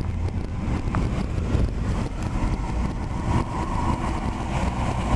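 Steady road and engine noise inside a moving car, a low rumble with a hiss over it.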